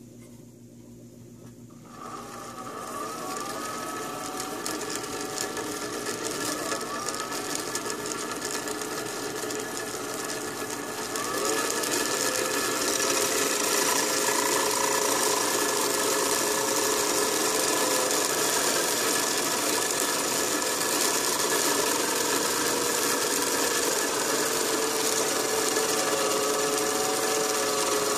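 Small motor-driven cutter spindle cutting a clock pinion on a lathe: the motor starts about two seconds in and runs with a steady whine. From about eleven seconds in it gets louder and hissier as the cutter works into the pinion blank.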